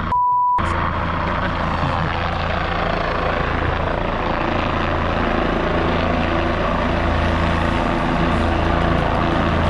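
A short steady beep at the very start, with all other sound cut out, like a censor bleep. Then a helicopter's rotor and engine run steadily as it comes in low to land.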